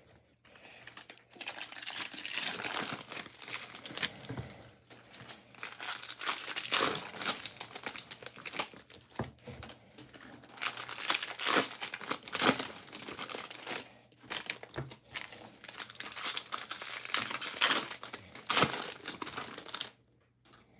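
Foil trading-card pack wrappers crinkling and tearing as Bowman Draft packs are ripped open and handled, in irregular spells of crackling that stop abruptly near the end.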